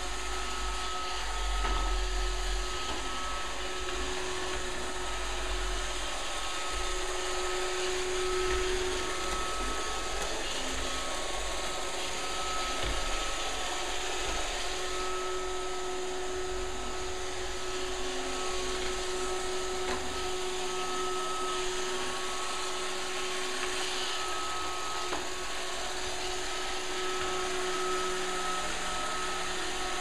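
Roomba robot vacuum cleaner running steadily: an even whirring hiss with a thin motor whine that comes and goes.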